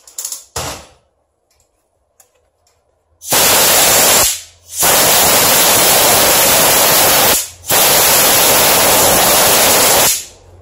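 Compressed-air blow gun blasting air at a metal drill part in three long, loud bursts, the first short and the next two a few seconds each, after a couple of brief puffs in the first second.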